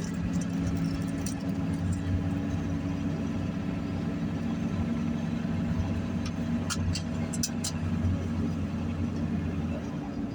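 A vehicle's engine running steadily with road noise, heard from inside the cab, with a few short sharp clicks a little past the middle.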